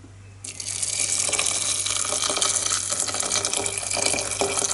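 Boiling water poured in a steady stream into a stainless steel pot of fried vegetables, starting about half a second in.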